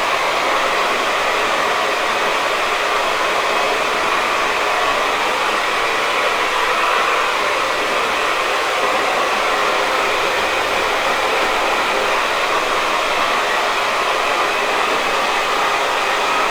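Hair dryer blowing steadily, a constant airy hiss with no change in pitch or level.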